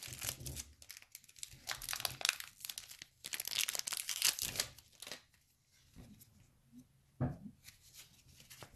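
Wrapper of a hockey card pack being torn open and crumpled in the hand, crackling for about five seconds; then a few short rustles as the cards are handled.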